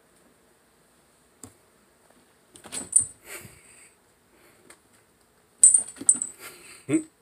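Two bursts of quick clicks and scuffs, about three seconds in and again near the end, from a hand sweeping and tapping along the painted stair wall and the phone being jostled.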